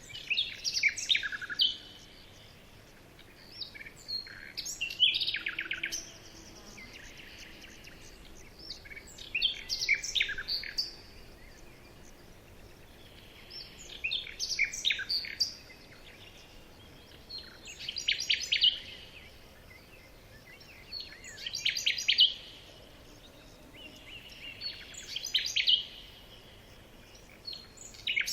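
A small songbird singing the same short phrase of quick high notes over and over, about once every three to four seconds.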